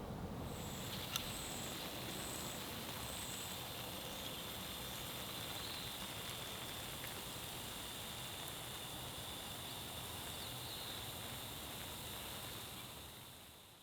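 Outdoor garden sound: a steady hiss of water spraying from sprinklers, with a steady high-pitched drone and four short high chirps in the first few seconds, fading out near the end.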